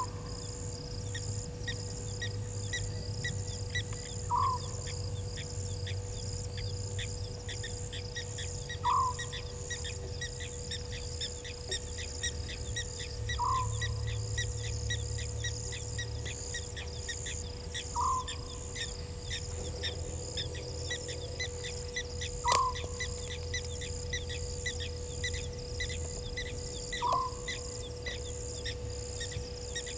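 A night bird's short call, repeated about every four and a half seconds, over a dense, steady chorus of chirping crickets and other insects. A faint steady hum and a low rumble run underneath.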